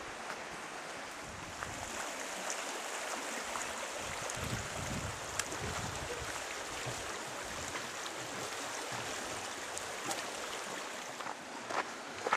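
Steady rush of a fast-flowing river running over stones, with a brief low rumble about halfway through and a few footsteps near the end.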